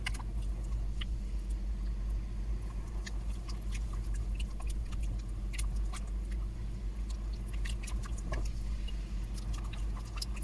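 Wooden spoon pressing and working melting mozzarella in simmering sugar water in a steel pot: irregular small clicks, taps and wet squelches over a steady low hum.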